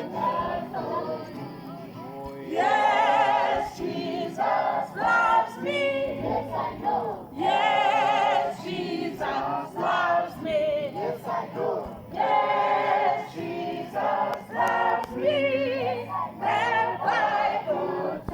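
A choir singing together in phrases with long, wavering held notes.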